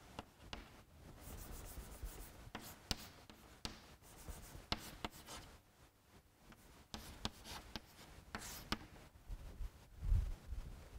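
Chalk writing on a blackboard: faint, scattered taps and scratches of the chalk as symbols are written. A low thump comes about ten seconds in.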